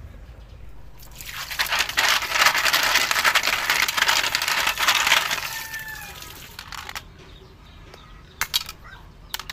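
Tap water pouring and splashing into a metal pot as a hand rinses leaf-wrapped packets, a rushing splash lasting several seconds. Near the end, a few sharp knocks of a knife blade striking horn snail shells on a wooden board.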